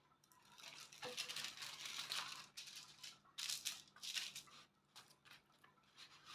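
Small plastic baggie of diamond-painting drills being handled: faint crinkling plastic and rattling drills in several short bursts.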